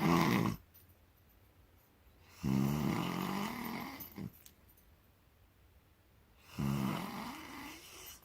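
A man snoring loudly in his sleep: one snore ends just after the start, then two more follow, each a rough pitched drone of about two seconds, with quiet gaps of a few seconds between them.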